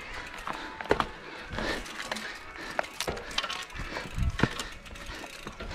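Mountain bike clattering over rocks: irregular sharp clicks and knocks from the chain, frame and tyres, with a couple of heavier thumps about four seconds in.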